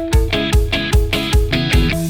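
Background music: guitar-led rock track with a steady beat, about three beats a second.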